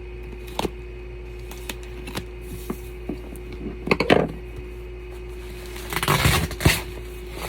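Parcel packaging being handled and worked open by hand: scattered small clicks and knocks, a short crinkling scrape about four seconds in and a longer rustling tear of wrapping near the end, over a steady low hum.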